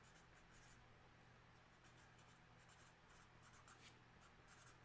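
Near silence: faint room tone with a low steady hum and a few soft scratching, rustling ticks.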